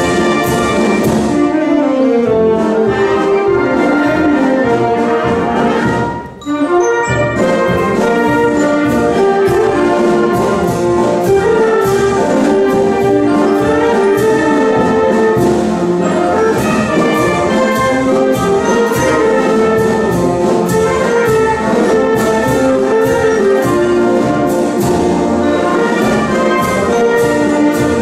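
Concert wind band playing a march: brass and woodwinds together over a steady percussion beat, with a brief break about six seconds in before the full band comes back in.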